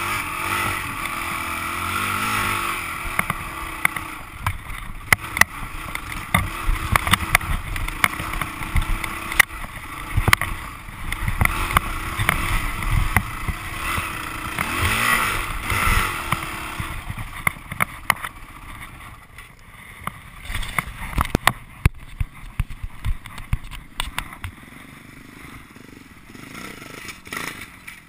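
Dirt bike engine running over a rough trail, with frequent sharp knocks and clatter. About fifteen seconds in the engine revs up and back down, then the sound drops quieter, leaving only scattered knocks.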